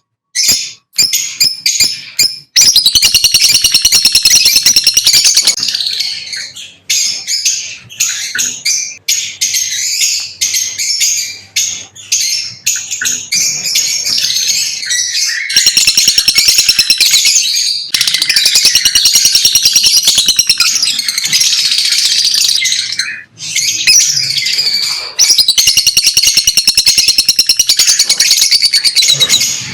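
Lovebirds chirping: long runs of rapid, high-pitched chattering, broken by a few short pauses.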